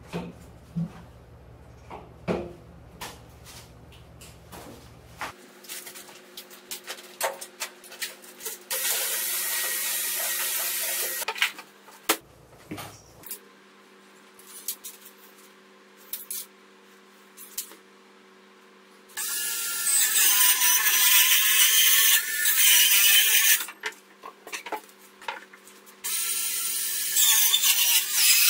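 Handheld electric circular saw cutting a fibreboard sheet in runs of a few seconds, three times, the later runs the loudest, with light knocks and clicks between the cuts.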